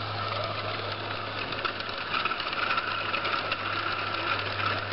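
Roundhouse G-scale (45 mm gauge) live steam locomotive and its train passing close by: a fast rhythmic chuffing clatter over a steady hiss, a little louder from about two seconds in as the coaches go by.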